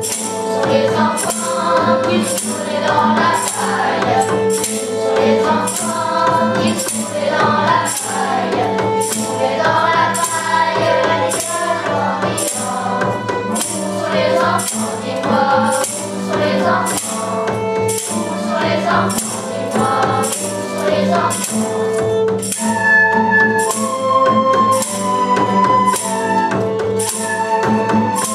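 A beginner school ensemble plays a song: a children's choir sings along to acoustic guitar, violin and keyboard, while a tambourine marks the beat with a strike about once a second.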